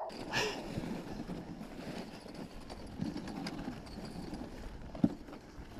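Dog sled moving over snow behind a running team of sled dogs: continuous scraping and rattling from the sled's runners and frame, with the dogs' running steps, and one sharp knock about five seconds in.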